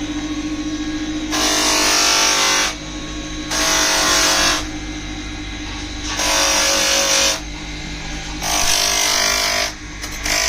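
A small electric power tool's motor hums steadily, with loud, harsh noise about once every two and a half seconds, each burst lasting about a second, as the tool is pressed against the work five times.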